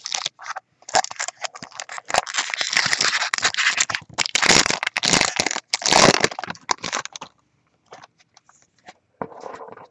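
Baseball card pack wrapper being torn open and crinkled: a dense run of crackles and rustles for about six seconds, then a few light ticks as the cards are handled.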